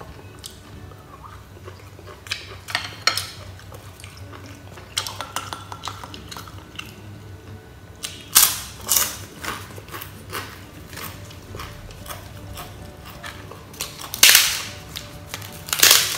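Close-up eating sounds: chewing with sharp, loud crunches a few seconds apart, from bites of crisp grilled rice paper. The loudest crunches come about eight and fourteen seconds in, and again near the end.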